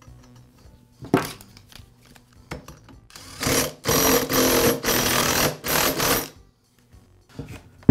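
Cordless impact driver running in several bursts over about three seconds, hammering the flywheel nut tight on a two-stroke chainsaw crankshaft. There is a sharp knock about a second in.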